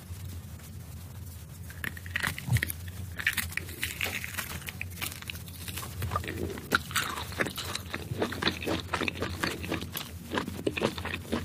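Crunchy biting and chewing of food close to the microphone: a quick run of irregular crackles and crunches that starts about two seconds in.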